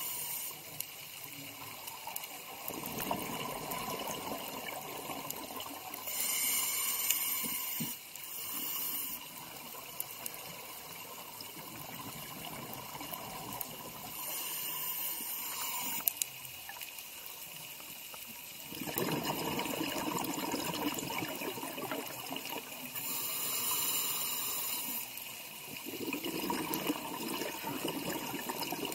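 Underwater sound of scuba diving: hissing bursts of exhaled regulator bubbles every several seconds, with a steady rush of water between them.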